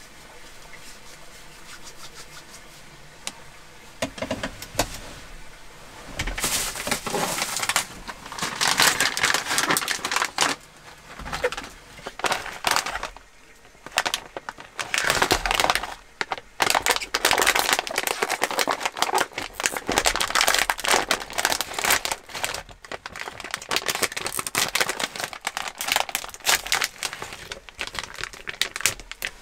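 Foil-lined snack bag being crinkled, torn open and spread flat. It comes as runs of sharp crackling from about six seconds in, with a brief pause midway.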